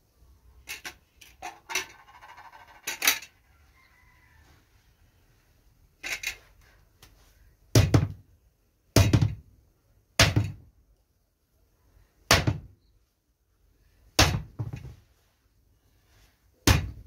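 Boiled bael fruit with its hard woody shell being knocked against a wooden block to crack it open: a few light knocks and some scraping at first, then six loud, sharp thunks at intervals of one to two seconds.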